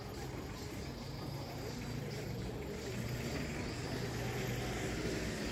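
Street traffic: a steady low hum of vehicle engines, slowly growing louder.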